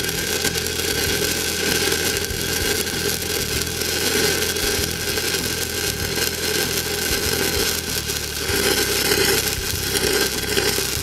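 Shielded metal arc (stick) welding with a 1/8-inch E6010 electrode at 70 amps DCEP, running the root pass on schedule 40 pipe. The arc gives a steady, dense crackle.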